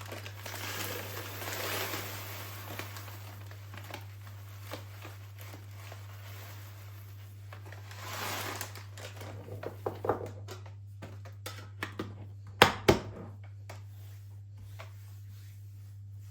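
Household handling sounds: soft rustling and crinkling, then a run of clicks and knocks with one sharp knock about three-quarters of the way through, over a steady low hum.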